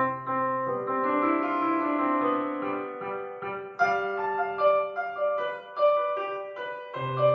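Piano music: struck notes and held chords, with sharper notes struck about four and six seconds in.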